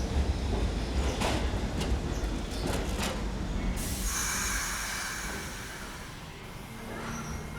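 Subway train rolling slowly, a low rumble with several sharp knocks from the wheels over rail joints in the first half, then a steady hiss from about halfway.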